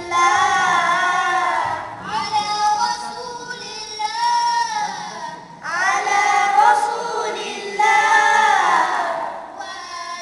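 A group of boys singing an Islamic devotional song (nasheed) together, in sung phrases of a second or two with short breaks between them.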